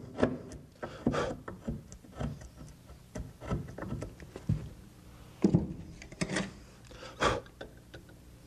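Wood chisel pushed by hand, paring out a hinge mortise in the edge of a wooden door: irregular scraping cuts and chip-clearing strokes, with a few sharper ones in the second half.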